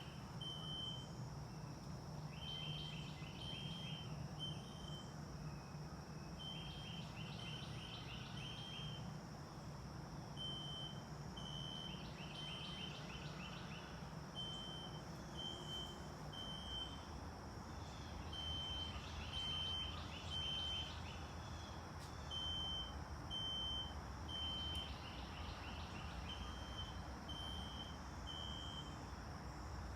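Recorded System Sensor SpectrAlert Classic fire alarm horn played from a tablet, sounding in the temporal-three evacuation pattern: groups of three short buzzy beeps, one group about every four seconds. A steady low background rumble runs underneath.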